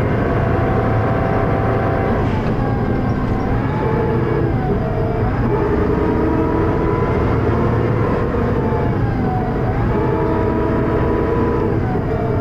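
Dennis Arrow double-decker bus heard on board, its diesel engine and ZF automatic gearbox working hard with a high-pitched whine. The pitch sags and climbs again twice as it pulls through the gears. The uploader calls the gearbox slipping.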